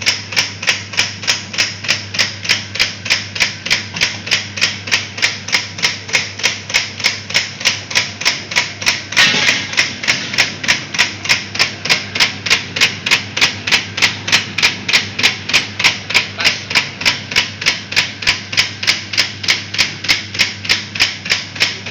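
Pentol (meatball) forming machine running, clacking evenly about three to four times a second over a steady low motor hum, with a brief louder rush of noise about nine seconds in.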